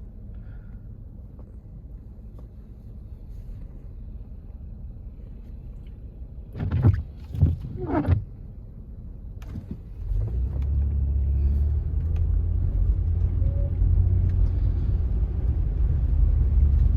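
A motor vehicle's low rumble that grows louder about ten seconds in, with a few sharp knocks between about six and eight seconds in.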